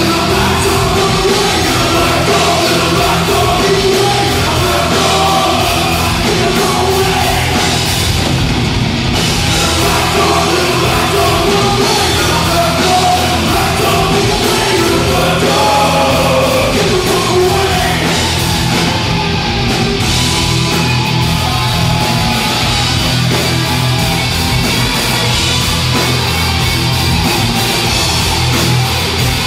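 Live heavy metal band playing loud: electric guitars, bass and drums, with a singer's vocals over roughly the first half.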